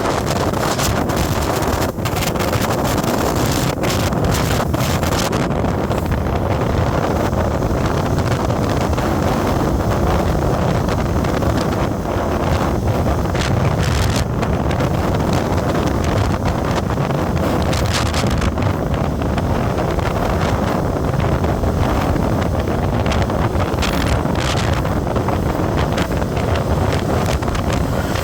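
Wind buffeting the microphone over the steady rumble of a moving vehicle on the road, with occasional small knocks.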